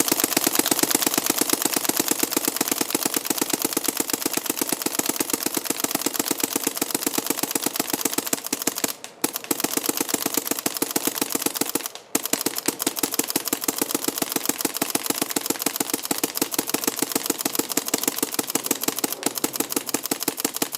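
Autococker paintball marker firing in a fast, continuous string of rapid shots, broken by two brief pauses about 9 and 12 seconds in.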